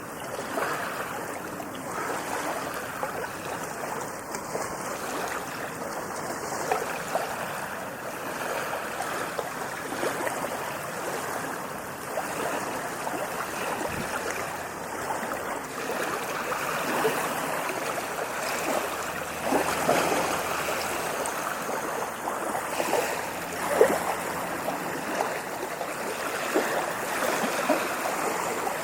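Ocean surf washing in, a continuous rush of water that swells and eases, with a few louder surges in the second half.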